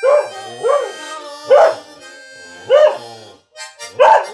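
A border collie singing along in short howls, about five in a row, each rising and then falling in pitch, over steady held musical notes.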